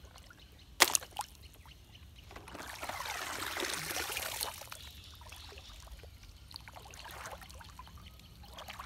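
A sharp plastic clack about a second in as a toy truck is dropped into a plastic basket, then shallow puddle water splashing and trickling for about two seconds, with fainter sloshing after.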